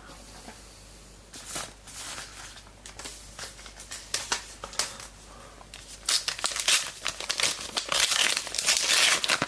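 Trading card pack wrapper being handled and torn open. Light scattered rustling and clicks for the first six seconds, then dense, louder crinkling of the wrapper.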